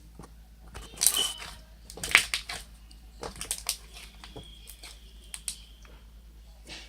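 Irregular clicks, crackles and rustles from hands handling slime and its plastic containers, loudest about one and two seconds in.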